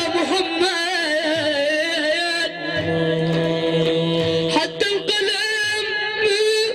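Male voice singing an Islamic praise song (madih) in a melismatic Middle Eastern style, with wavering, ornamented held notes.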